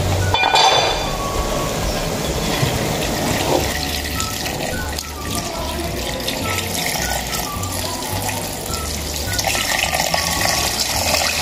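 Water pouring in a steady stream into a large aluminium cooking pot of pork ribs, adding liquid for the broth, with background music.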